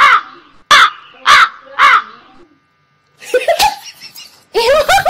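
A crow cawing four times in quick succession, about two caws a second, stopping after about two seconds.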